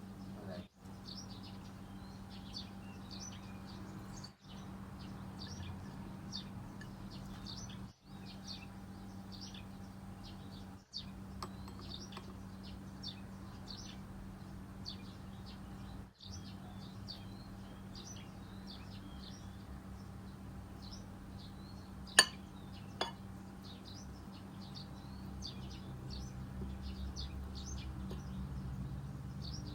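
Small birds chirping continually in quick short notes over a steady low hum. About 22 seconds in come two sharp clinks, like a dish or utensil being set down, the first one loud.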